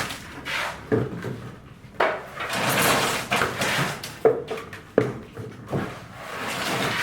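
Irregular knocks and scraping noises, several sharp strikes with stretches of rough scraping between them, as from building work with hand tools and materials.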